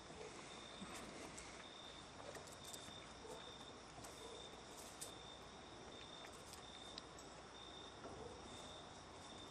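Faint, evenly repeating high-pitched chirping of a cricket over quiet background hiss.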